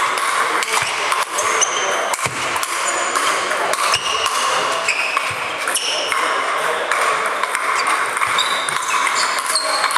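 Table tennis rally played with sandpaper bats: quick clicks of the ball off bat and table, with short ringing pings of balls from other tables, over a steady murmur of voices.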